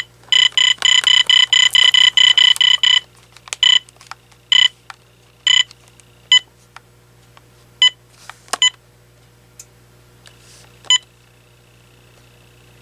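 AT&T 7720 cordless phone beeping as its buttons are pressed: a fast run of beeps for about three seconds, then single beeps roughly a second apart with small button clicks in between. A faint steady tone comes in near the end.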